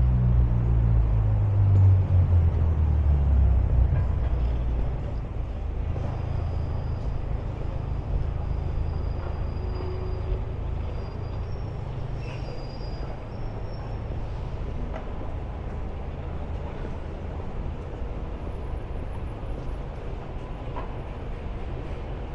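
Urban traffic: a vehicle's low engine rumble, loudest in the first five seconds, then settling into a steady, quieter hum of traffic.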